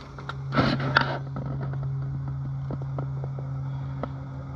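Camp stove burning steadily under a pot of water, a low even hum with scattered light ticks. The water is hot but not at a full boil.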